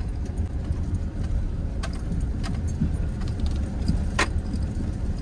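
Inside a pickup truck's cab crawling slowly over a bumpy rocky trail: a steady low rumble of engine and road, with the keys hanging in the steering column jingling and ticking against it now and then.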